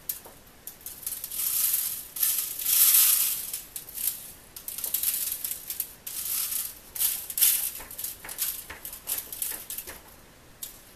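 Dry spice rub being sprinkled and pressed by hand onto a raw turkey in a disposable aluminium foil roasting pan: a run of irregular rustling, crinkling swishes, some short and some lasting a second or so.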